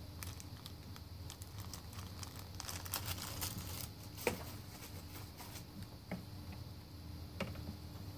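Faint handling noises of small objects being worked by hand: scattered light taps and crinkling over a low steady room hum.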